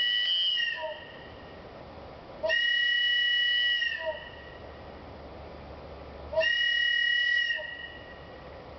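Wooden multi-chamber train whistle blown in three blasts, each a steady chord of high tones. The first blast is already sounding and stops under a second in; the other two last about a second and a half each and come a few seconds apart. Two of its finger holes are covered.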